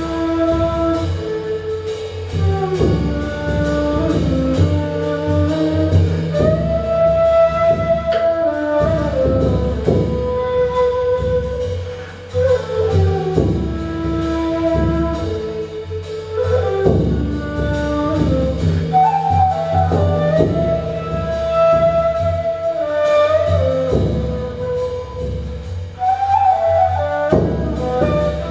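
Ney, an end-blown cane flute, playing a slow melody of long held notes that slide from one pitch to the next, over a steady drum beat struck with a beater.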